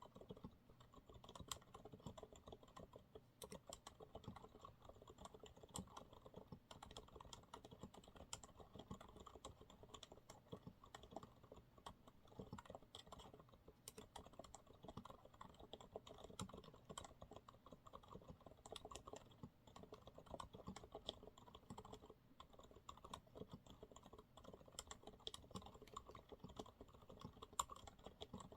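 Quiet, continuous typing on a Monsgeek MG108W keyboard with TTC silent brown switches, several keystrokes a second with no real pauses.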